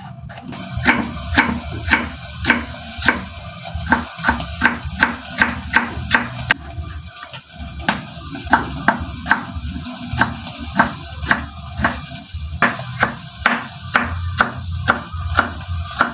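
Knife chopping tomatoes on a cutting board in steady strokes, about two a second, with a short break about seven seconds in.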